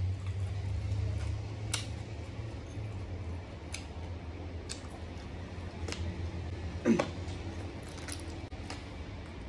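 Close-miked mouth and hand sounds of braised pig ear and tail being eaten: scattered sharp clicks and smacks, with one louder wet smack about seven seconds in, over a low steady hum.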